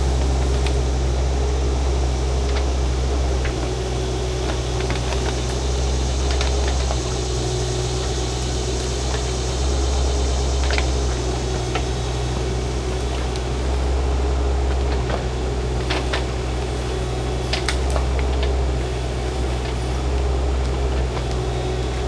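Shantui mini excavator's engine running steadily, swelling now and then as it works. A few scattered sharp clicks and knocks are heard over it.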